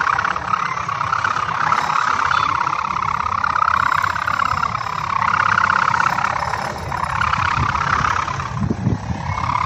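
Sendaren (koang), the bow-and-ribbon hummer on a flying kite, droning in the wind: a continuous buzzing tone whose pitch rises and falls in slow swells every second or two, over a low rumble.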